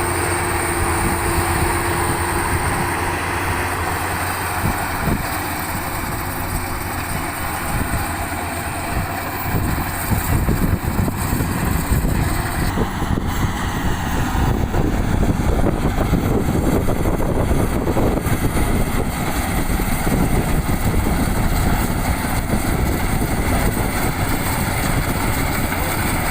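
Bimo 102 rice combine harvester running, its engine and machinery making a steady mechanical din that grows louder and rougher about ten seconds in.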